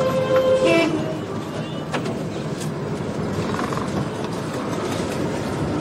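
Street traffic noise with a steady rumble near the bus stand. A vehicle horn sounds in the first second, and there is a sharp knock about two seconds in.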